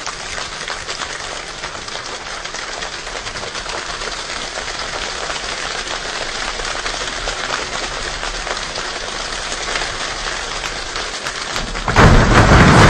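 A large choir imitating rain with their hands: a dense, steady patter of many small ticks that slowly grows louder. About twelve seconds in, a sudden much louder burst with a deep low end breaks in.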